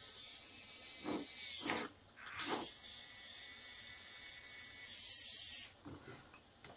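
Small DC gear motors of a 3D-printed robot gripper whirring through their printed plastic gears as the fingers open and close, in three separate runs, the last short and loudest.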